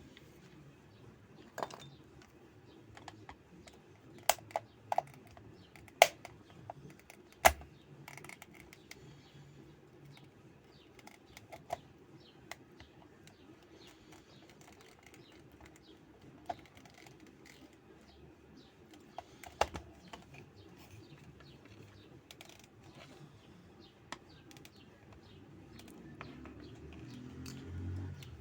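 Plastic hair dryer casing being taken apart by hand: scattered small clicks and sharp plastic knocks as parts and screws are handled, with a cluster of louder knocks about four to seven seconds in and another near the middle.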